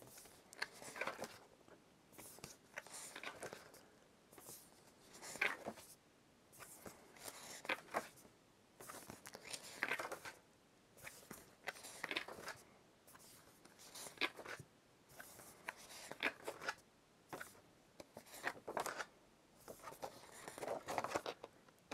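Intermittent soft rustling and scraping of paper and cardboard being handled, short irregular bursts a second or two apart.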